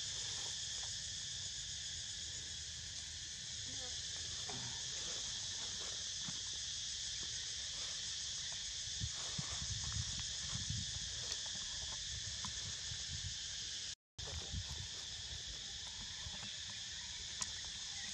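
Steady, shrill insect chorus over a low rumble, with a few faint clicks near the middle; the sound drops out completely for a moment about two-thirds of the way through.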